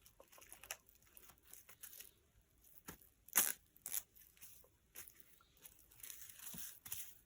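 Faint, scattered rustling and crinkling from something being handled, with a louder crackle about three and a half seconds in.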